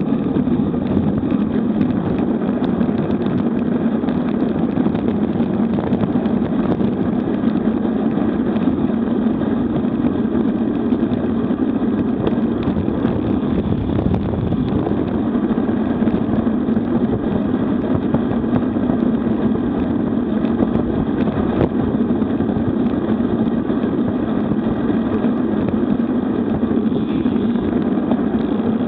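Steady rush of wind buffeting an action camera's microphone on a road bike descending fast, at about 40 to 70 km/h.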